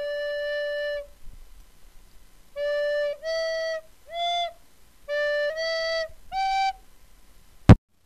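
A flute-like wind instrument plays a short melody: one long held note, then two phrases of three short notes each, the second answering the first. A single sharp click comes just before the end.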